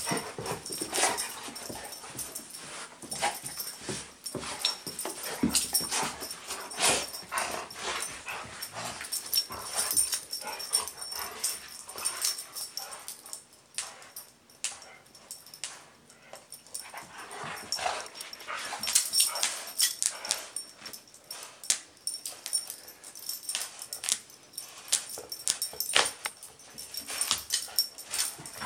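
Two golden retrievers playing tug of war over a sock, making short, irregular dog sounds throughout, with a quieter stretch about halfway through.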